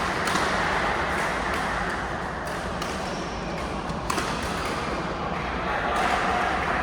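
Basketball game noise in a gym: a steady hubbub of crowd and players, with a sharp knock about four seconds in and a few brief high squeaks.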